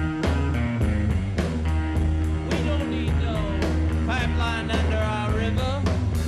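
A rockabilly/roots-rock band playing live: electric guitar with bent notes over double bass and drums keeping a steady beat. The guitar bends are clearest in the middle.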